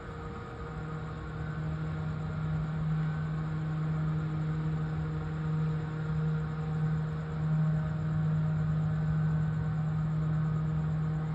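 Cruise ship's engines and machinery running steadily, a constant low drone with a strong hum.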